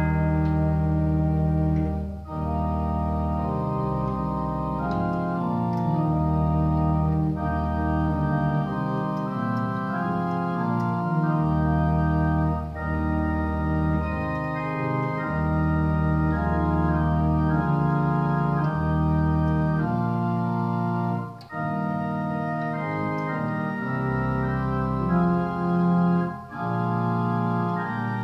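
Church organ playing a hymn in slow, sustained chords over a held pedal bass, with short breaks between phrases.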